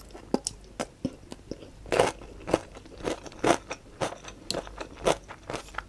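Close-miked chewing of a slice of fresh cucumber: a run of irregular crunches, about two a second.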